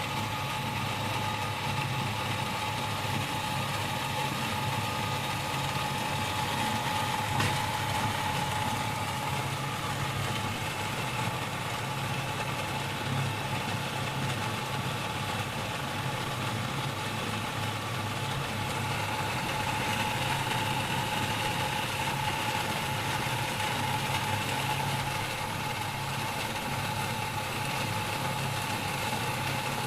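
Electric jet water pump running steadily: a low motor hum with a steady whine over it. A second, higher whine joins about twenty seconds in, giving two tones at once.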